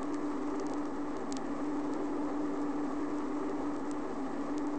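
Steady cabin noise inside a BEA Hawker Siddeley Trident jet airliner climbing, its Rolls-Royce engines and the airflow giving a constant drone with a steady low hum, as recorded on a 45 rpm record. A few faint clicks sound over it.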